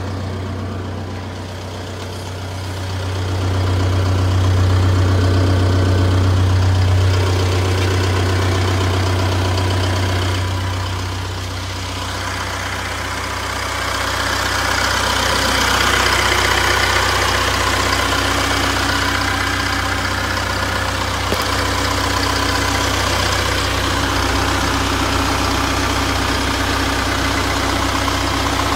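Isuzu Elf light truck's engine idling steadily, a low even hum throughout. The higher mechanical noise of the engine grows about halfway through.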